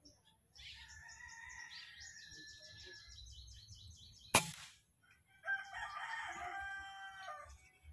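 A single sharp shot from a CDO PCP air rifle about halfway through, with a brief ring after it. A bird calls in a rapid repeated high note in the first three seconds, and a rooster crows for about two seconds near the end.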